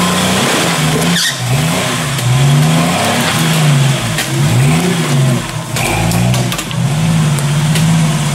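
Jeep Wrangler engine revving up and down over and over as the Jeep crawls over rocks in low gear, with a short knock about a second in and another near six seconds.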